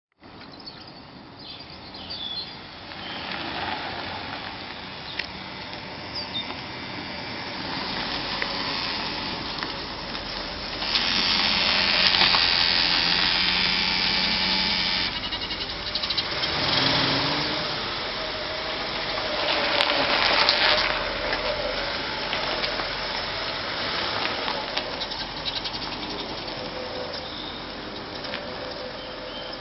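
1962 Lincoln Continental running, with a strange mechanical noise that the owner blames on the transmission. The noise swells and fades, loudest in the middle with a low hum under it, then settles back.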